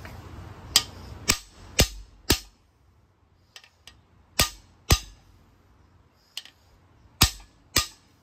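Hammer striking the driver of a cam bearing installer tool, driving a new cam bearing into its bore in a Ford 302 small-block. Eight sharp metallic strikes: four about half a second apart, then a pair, then another pair near the end.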